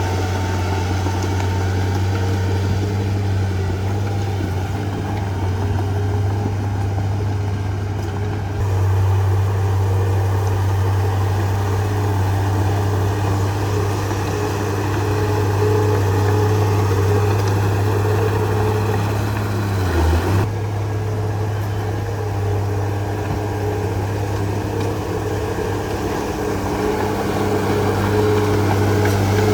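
Heavy bulldozer's diesel engine running steadily with a deep, even hum, a little louder about a third of the way in and with a brief dip about two-thirds through.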